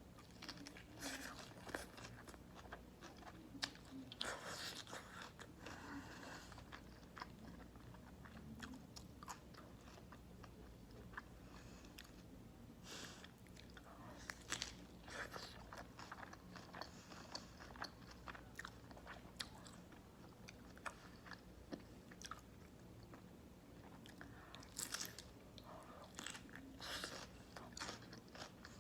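Close-miked eating: crunchy bites into a beef burger wrapped in raw cabbage leaves, then wet chewing, in separate clusters of crisp crunches and smacking clicks.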